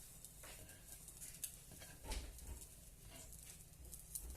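Faint, scattered light taps and clicks, eight or so irregularly spaced, as the pan of seared scallops is garnished, over a low steady hum.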